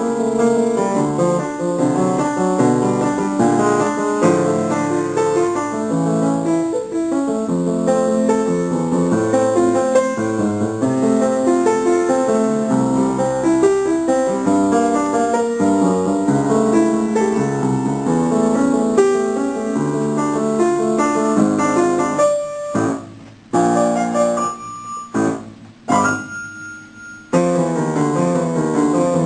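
Solo piano playing fast, continuous running notes. About twenty-two seconds in the flow breaks into a few short, separated chords with pauses between them, and the running figures resume near the end.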